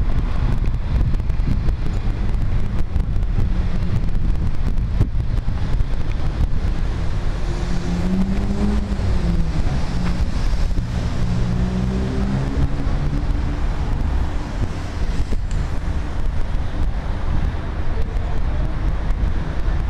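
Outdoor street noise with wind buffeting the microphone. Through the middle an engine runs, its pitch rising and falling a few times.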